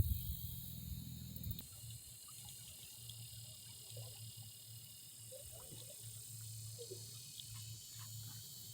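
Quiet outdoor ambience: scattered faint chirps and clicks over a low steady hum, after a short knock right at the start and a low rumble that stops about one and a half seconds in.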